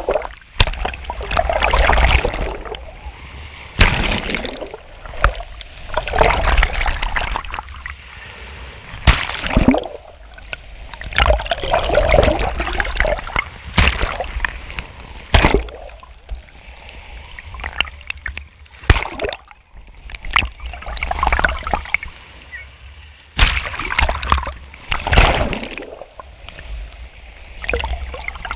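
Small sea waves washing over a camera held at the waterline, at times briefly swamping it: sloshing, splashing surges every two to four seconds, with sharp slaps in between and a low rumble under them.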